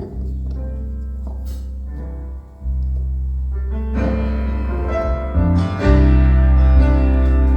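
Instrumental music: sustained keyboard and string-like notes over a heavy bass, growing fuller and louder about four seconds in.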